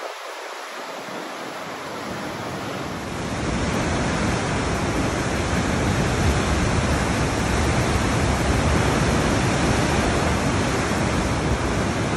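Steady rushing noise, growing louder about three seconds in.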